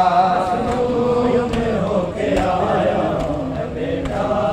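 Men's voices chanting a Punjabi noha, a Shia lament, in unison. They hold a long drawn-out note for the first second or so, then move on in a slow, rising and falling line.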